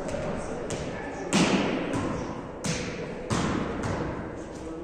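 Volleyballs being struck by hands and forearms in passing drills: about five sharp slaps, the loudest about a second and a half in and again a little past three seconds, each ringing on in a large echoing hall.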